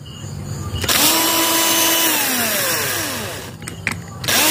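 Cordless drill/driver turning a screw on a circuit board. Its motor spins up about a second in, runs steadily, then slows down with falling pitch. A few clicks follow, and it starts again near the end.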